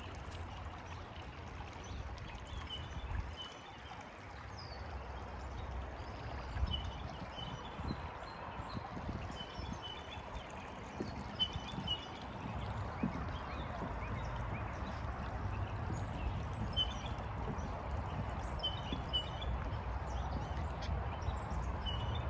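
Creek water running over stones, a steady rushing that grows slightly louder, with a low wind rumble on the microphone. A bird chirps in short double notes every couple of seconds.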